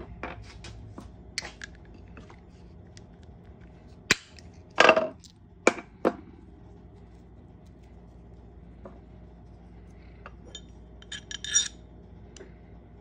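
Hardened steel ring-making dies and tools clinking and knocking as they are handled and set down on a wooden bench, and a copper coin ring being tried on a steel ring-sizing mandrel. Scattered sharp metallic clinks, the loudest about five seconds in, and a short cluster of ringing clinks near the end.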